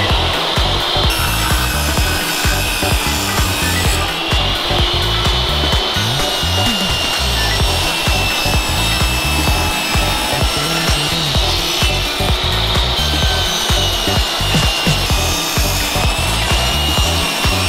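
Bosch table saw ripping a glued wood panel, the blade running under load with a steady loud noise and a high whine that drifts slightly in pitch.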